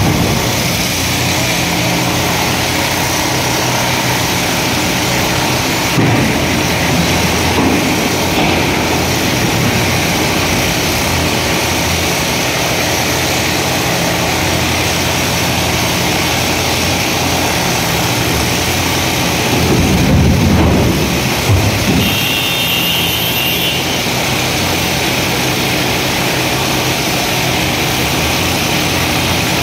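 Komatsu PC350 excavator's diesel engine running steadily under working load. Its revs swell a few times as the arm and bucket are worked. A brief high-pitched whine sounds about three-quarters of the way through.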